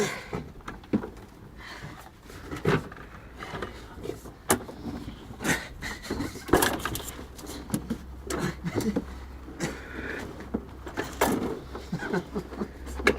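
Irregular knocks, bumps and scrapes of a toy car being jostled and shifted as a man struggles to squeeze his body into it, with a few short grunt-like vocal sounds in between.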